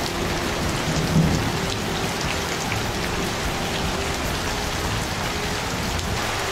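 Steady hiss of heavy rainfall.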